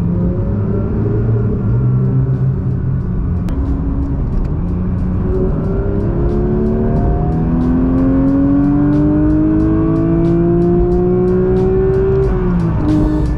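Porsche 992 GT3's naturally aspirated 4.0-litre flat-six heard from inside the cabin, running at a steady cruise, then pulling hard with its pitch climbing steadily for several seconds before falling away sharply near the end.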